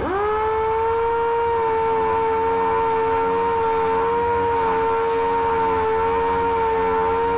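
Dual-action (DA) sander spinning up with a quickly rising whine, then running at a steady pitch while sanding a plastic repair area with 80-grit paper at slow speed so the plastic doesn't melt.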